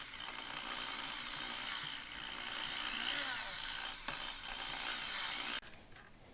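Electric drill boring into a steel bolt broken off flush in a Cummins 8.3-litre diesel cylinder head, the bit cutting steadily with a little oil. It stops suddenly about five and a half seconds in.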